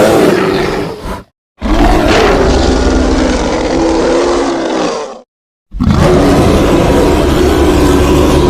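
Loud gorilla–bear hybrid creature sound effect: drawn-out roaring growls in three long stretches, each cut off by a brief dead silence, one about a second in and one about five seconds in.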